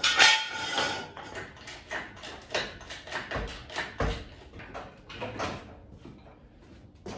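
Irregular clatter and knocking of tools and metal parts being handled in a garage, starting with a loud rattling scrape, then a string of sharp knocks with two heavier dull thumps near the middle.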